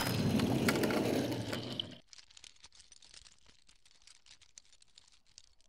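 Logo-intro sound effect: a dense noisy rush that fades out about two seconds in, leaving near silence with a few faint clicks.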